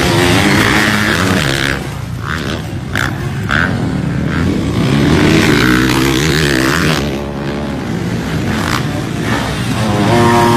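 Motocross dirt bike engines revving up and falling back again and again as the bikes race over a dirt track, with a few short knocks or gusts about two to three seconds in.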